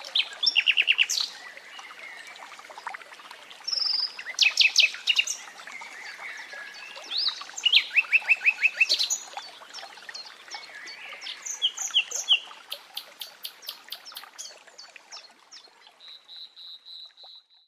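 Nightingale singing in separate phrases of rapid repeated notes and clear whistles, over the steady rush of running water that fades out near the end.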